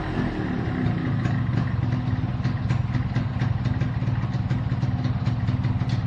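A 1997 Yamaha RXG's single-cylinder two-stroke engine idling steadily with a light, irregular popping clatter. It runs on a freshly replaced air filter box and intake hose, which have cured its intake vacuum leak.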